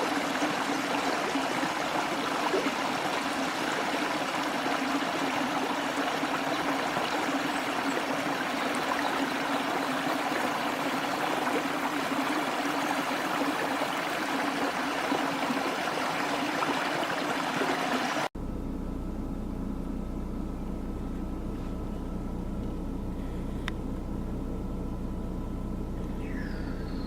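Small waterfall splashing steadily. About 18 seconds in, it cuts off abruptly to a low steady rumble with a faint high steady tone, and a couple of short chirps near the end.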